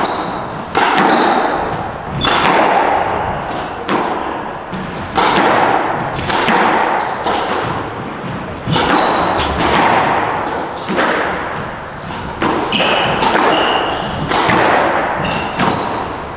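Squash rally: sharp hits of the ball off rackets and walls about once a second, each ringing in the enclosed court, with short high squeaks of court shoes on the wooden floor between them.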